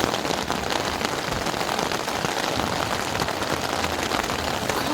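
Heavy rain pattering steadily on a tent's fabric, heard from inside the tent.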